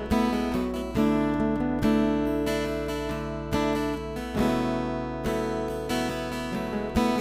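Background music of strummed acoustic guitar, a chord struck about once a second and left to ring.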